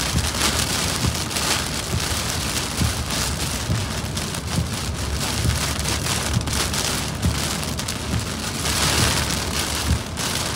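Rain on a moving car with tyre noise on the wet road: an even hiss over a low road rumble, the hiss swelling and easing a few times.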